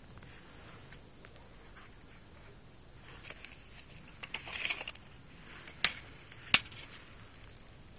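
A steel tape measure being handled in a dug hole: the blade scrapes and rustles, swelling about four seconds in, then gives two sharp clicks as it flexes, about six seconds in and again just after.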